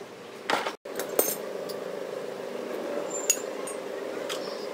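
Small metal engine parts and hand tools clinking as they are handled. There are several sharp clinks, the sharpest about three seconds in, over a steady background hum.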